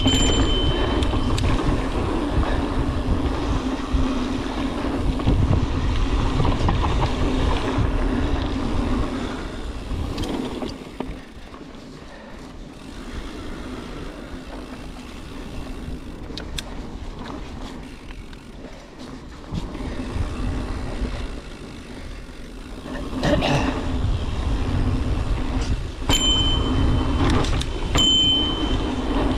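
Mountain bike rolling down a dirt singletrack: a steady rumble of tyres on dirt, bike rattle and wind on the microphone. It goes quieter through the middle, a jolt comes about 23 s in, and a couple of short high squeals follow near the end.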